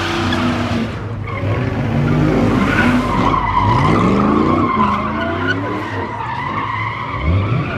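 Pickup truck doing a burnout: tyres spinning and squealing on pavement while the engine revs rise and fall again and again.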